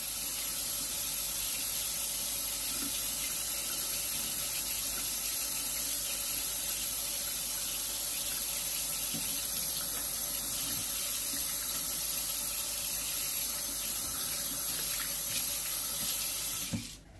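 Kitchen tap running steadily into a stainless-steel sink, the stream splashing over hands as they rinse pieces of fish. The water sound stops suddenly near the end.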